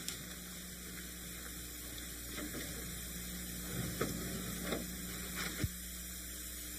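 Steady low electrical hum with a few faint clicks about two-thirds of the way through.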